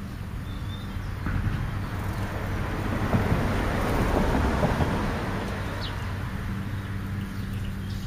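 A vehicle passing by, its noise swelling over a couple of seconds and fading away again, with a few faint short bird chirps.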